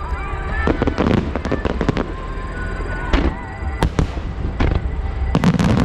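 Aerial fireworks bursting with sharp bangs and crackles in clusters about a second in, around three to four seconds, and near the end, over music playing through loudspeakers.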